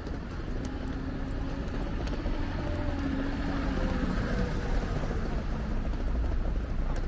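City street traffic: a steady low rumble of cars on the road, with a passing vehicle's engine hum that falls slightly in pitch over a few seconds.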